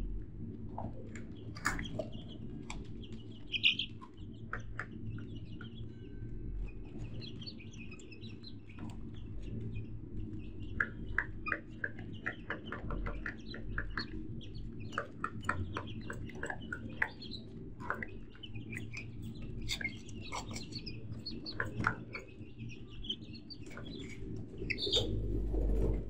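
A flock of birds chirping and calling, many short chirps overlapping throughout, over a low steady hum.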